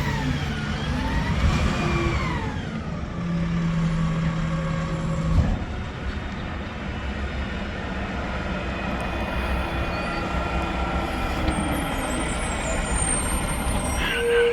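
Mack McNeilus front-loader garbage truck running. Its engine note rises and falls in the first couple of seconds, a steady low hum from about three seconds cuts off with a knock, and the truck then runs steadily until a short louder sound just before the end.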